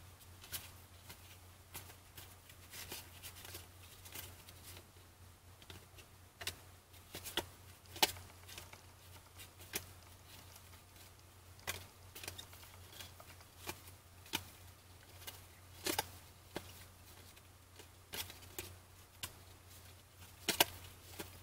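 A stack of glossy football trading cards being thumbed through by hand, one card slid off the pile after another, giving irregular soft clicks of card against card over a steady low hum.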